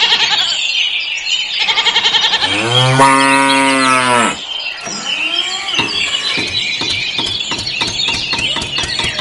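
A cow gives one long, low moo starting about two seconds in. From about halfway, a tractor engine takes over, running with a steady chug of knocks that quicken slightly.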